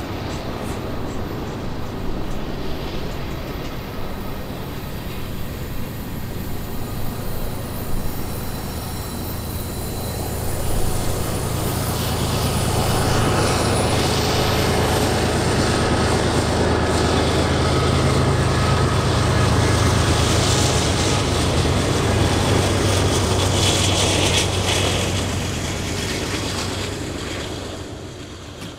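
Diesel locomotives of a long freight train working up the grade, a low steady engine drone that swells about ten seconds in, holds loud, then fades near the end.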